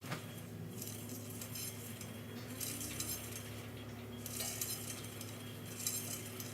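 Light clinking and rattling of small metal parts or tools being handled, in a few short bouts, over a steady low hum.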